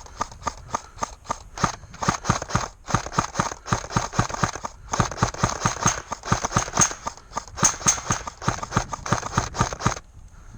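Running footsteps on wooded ground, about four to five strides a second, with a couple of brief breaks in stride.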